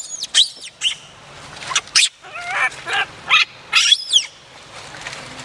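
Infant macaque crying: a string of short, high-pitched squeaks and squeals, with a few longer wavering cries about halfway through, then tailing off.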